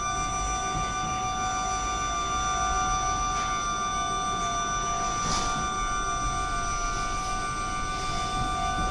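Several steady high electronic tones held at once, with a low rumble underneath and a brief knock about five seconds in.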